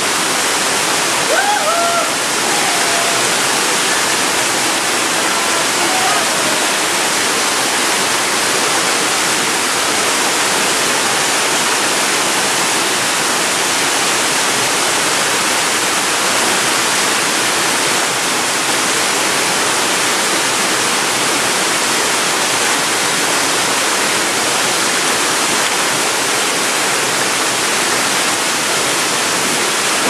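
Mountain waterfall cascading over rocks: a steady, full rush of water.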